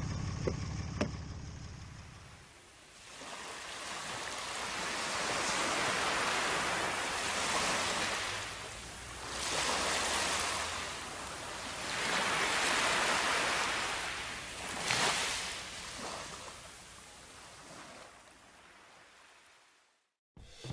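Small waves washing in over sand, the surf swelling and ebbing every few seconds before fading out near the end. For the first couple of seconds an engine idles and a door handle clicks once.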